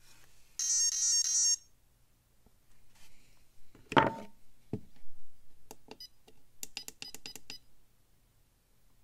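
Micro RC crawler's electronics powering up: a short tune of electronic beeps, typical of an ESC startup sequence, shows the system has power. About four seconds in comes a loud knock with a brief ring, and later a quick run of small clicks as the truck is handled.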